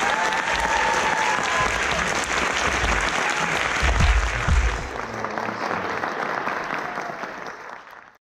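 Audience applauding and cheering at the end of a dance number, with one drawn-out shout in the first two seconds. The applause fades over the last few seconds and cuts off just before the end.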